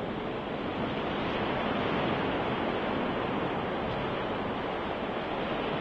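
Swimmers splashing as they kick and stroke away on their backs after a backstroke start: a steady rushing wash of water.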